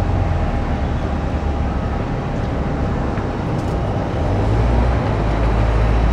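Jet airliner engine noise: a loud, steady rumble with hiss over it, the low rumble swelling about four and a half seconds in.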